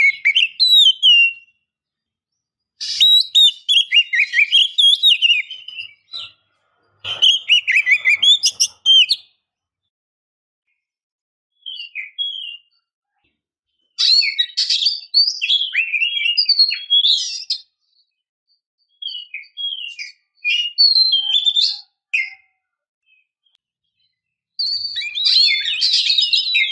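Oriental magpie-robin (kacer), a female according to the uploader, singing in about seven separate phrases of fast chirps, trills and whistles, each one to three seconds long, with silent gaps between. The calls are a breeding-condition female's calls, used to stir male magpie-robins to sing.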